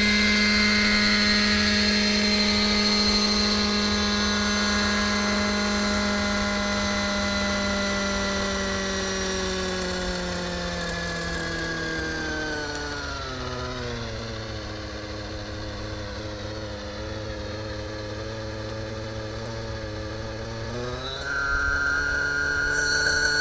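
Radio-controlled model helicopter's small engine and rotor running with a steady whine. The pitch winds down over several seconds as it sets down, then holds at a low idle. Near the end the pitch rises again sharply.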